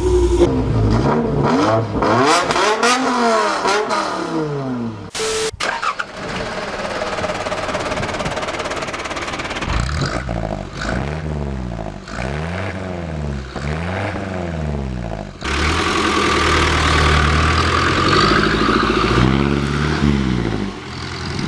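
Engine revving several times, its pitch climbing and falling in long sweeps, with a brief break about five seconds in. From about ten seconds in, the Toyota BJ42 Land Cruiser's diesel engine is revved a few more times at the exhaust. It then runs steadily as the vehicle pulls away.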